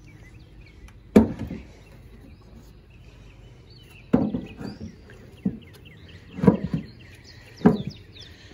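A metal-topped wooden beehive lid being handled and set down onto a wooden hive box: four sharp knocks, the loudest about a second in and the rest in the second half. Small birds chirp in the background.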